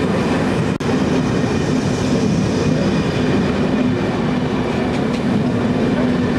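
Vintage railway passenger coaches rolling slowly past: a steady rumble of steel wheels on the rails with a low hum. There is a very brief dropout in the sound just under a second in.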